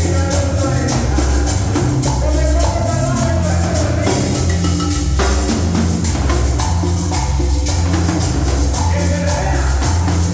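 Upbeat Latin dance music with a stepping bass line, a melody line, and fast, steady percussion.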